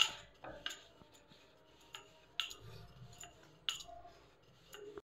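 Wooden rolling pin rolling out rice-flour dough on a round wooden board, giving sharp, irregular knocks and clicks, about seven in five seconds, with quiet between them.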